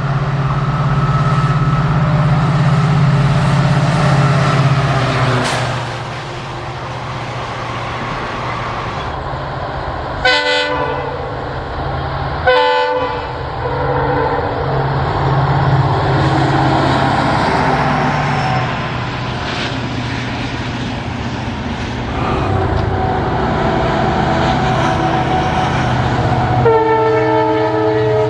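Diesel locomotives running past hauling passenger trains, their engines a steady low drone. The locomotive horn gives two short blasts about two seconds apart, around ten seconds in, and sounds again near the end.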